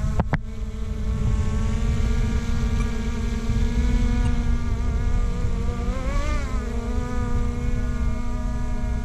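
Skydio 2 quadcopter drone's propellers humming steadily while it hovers, the pitch wobbling briefly about six seconds in, over a low rumble. Two sharp clicks come right at the start.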